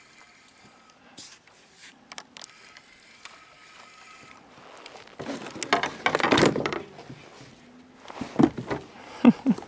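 Handling noise of fishing gear in a plastic kayak: a few sharp clicks, then a louder rustling stretch of about two seconds around the middle as the landing net is handled, and a few short knocks near the end.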